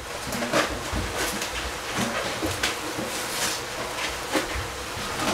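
Spatula stirring and scraping vegetables in a hot pan as they sizzle, with irregular scrapes and clicks.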